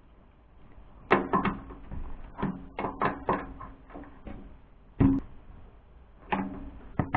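Irregular clicks and knocks from hands and a tool working on wiring inside a sheet-metal appliance cabinet. Several knocks leave the metal panel ringing briefly.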